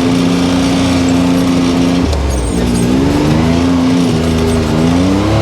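Can-Am Maverick X3 DS Turbo's turbocharged three-cylinder engine running steadily under way. About two seconds in it eases off, then picks up again in uneven surges, rising in pitch near the end.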